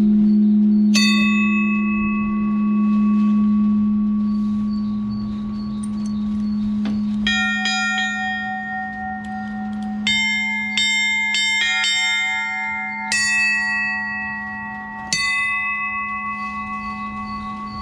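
Bells ringing: a deep, wavering bell hum sustains throughout while higher-pitched bells are struck one at a time over it. There is one strike about a second in, another around seven seconds, a quick run of four or five strikes in the middle, and a last one near the end, each ringing on.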